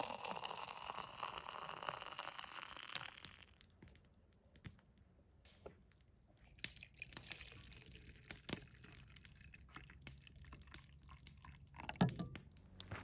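Hot water poured from a saucepan into a glass French press onto coffee grounds, a steady splashing pour that stops about three seconds in. Then scattered light clicks and knocks of the press being handled, and near the end a brief pour of coffee into an enamel mug.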